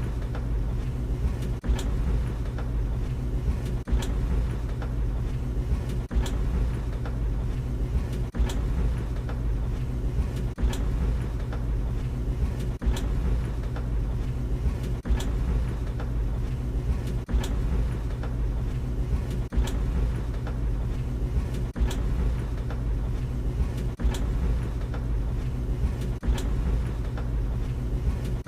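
Tumble dryer running: a steady low hum and rumble from the motor and turning drum, with a short knock or click about every two seconds and fainter ticks between.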